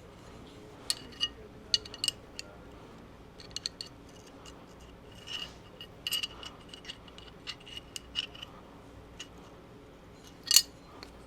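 Small metal parts handled on a workbench: light clicks and short scratchy scrapes, some with a faint metallic ring, as a small brush scrubs old Loctite off a pistol optic mounting plate. The loudest scrape comes about ten and a half seconds in.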